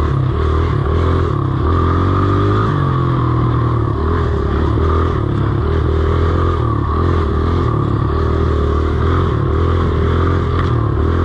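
Dirt bike engine running while being ridden along a trail, its note rising and falling with the throttle.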